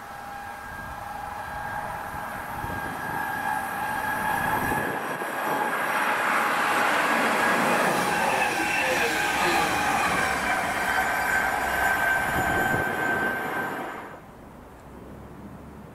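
Stadler KISS double-deck electric trainset running past on the track: a rush of wheel and rail noise that swells and stays loud for several seconds over a steady high whine, then cuts off suddenly near the end.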